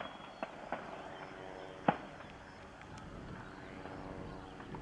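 A few sharp cracks, the loudest about two seconds in, over faint outdoor background with distant voices.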